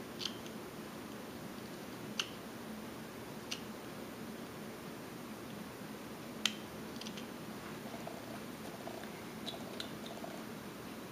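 Whittling knife taking small cuts in a wooden figure: several faint, sharp clicks as the blade snaps through the wood, spaced irregularly a second or more apart, with the loudest about six and a half seconds in, over a low steady hiss.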